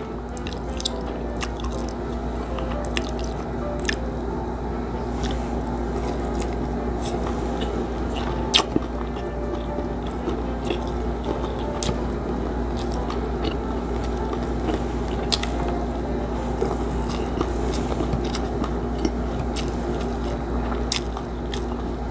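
Close-miked eating sounds: chewing and wet mouth noises, with scattered sharp clicks and small crunches, as crispy fried milkfish and rice are eaten by hand. Fingers squish through the rice.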